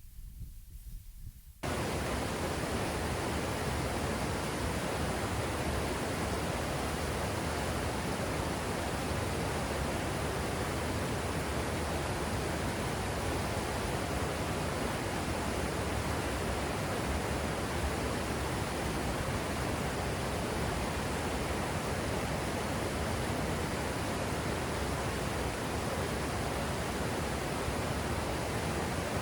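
Steady, unbroken rush of a waterfall, cutting in suddenly about two seconds in after a faint low rumble.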